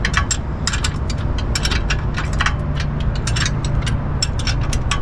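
A metal hand tool working at an outboard's gearcase and prop shaft: rapid, irregular metallic clicks, several a second, over a low steady hum.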